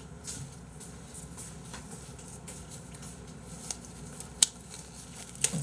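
Black disposable plastic glove being handled and pulled on, giving soft rustles and a few sharp clicks over low room tone. The sharpest click comes about four and a half seconds in.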